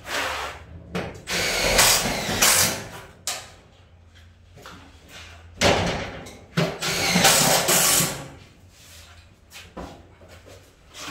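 A small hand-held tool worked along the cut edge of a fibre-cement sheet, in two spells of harsh noise of about two to three seconds each, with a pause between.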